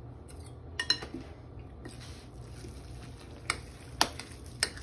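A fork stirring mayonnaise through potato salad in a glass bowl: soft squishing, with a few sharp clicks of the fork against the glass, most of them in the second half.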